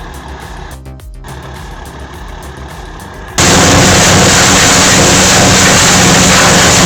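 Wood chipper or tree shredder running steadily with a low engine hum. A little over three seconds in, it breaks into a sudden, much louder, steady noisy grinding as material is fed into it.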